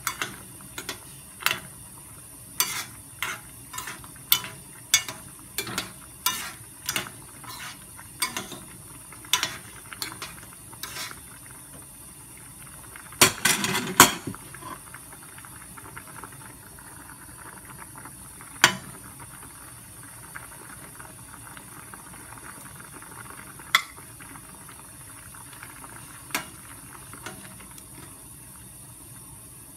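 A metal spoon stirring vegetables in a stainless steel saucepan, clinking against the pan about twice a second for the first ten seconds, with a louder cluster of clanks about thirteen seconds in and then only an odd single clink now and then.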